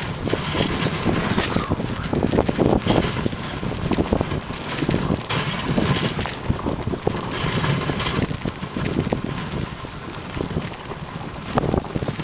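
Moving dog sled on a snowy trail: a steady rush of the sled over the snow with frequent small knocks and rattles, and wind on the microphone.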